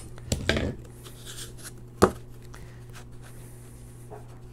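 A metal bench holdfast and wooden workpiece being handled and set on a workbench: brief rattling at the start and one sharp knock about two seconds in.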